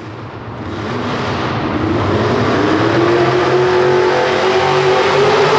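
Light pro stock pulling truck's engine revving up as the truck starts its pull against the sled. The engine note climbs and grows loud over the first couple of seconds, then holds high, still creeping slowly higher.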